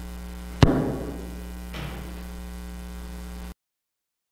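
Steady electrical mains hum, with one sharp knock that rings on briefly about half a second in and a fainter knock a second later; the hum cuts off suddenly near the end.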